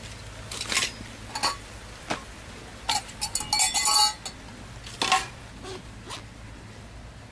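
Camping gear being unpacked and set down on banana leaves: a series of separate knocks, with a quick run of metallic clinks about three to four seconds in from a stainless steel cup and its carabiner.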